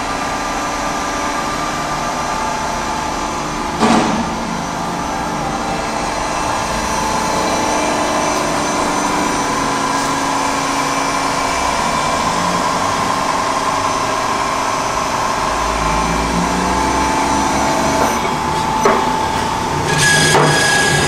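Steady running hum of a powered-up CNC Swiss turn lathe, several steady tones layered together. One sharp knock comes about four seconds in, and near the end a couple of clicks are followed by a higher steady whine.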